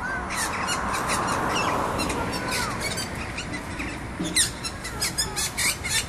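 Parrots calling: many short, high chirps and squawks in quick succession, some sweeping down in pitch, over a rushing background noise that fades after about two seconds.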